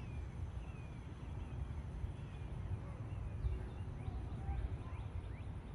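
Wind rumbling on the microphone, with a few faint bird chirps.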